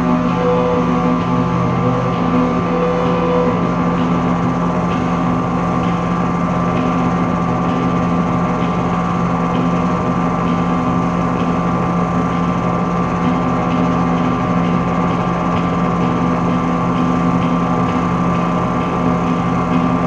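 Droning live-score music: several held tones layered over a steady, dense noisy wash, unchanging in level.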